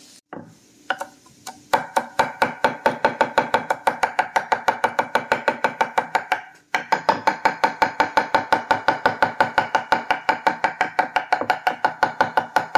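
Chef's knife chopping fresh cilantro on an end-grain wooden cutting board: a few single chops, then a fast, even run of about five to six knife strikes a second on the wood, with a short pause a little past halfway.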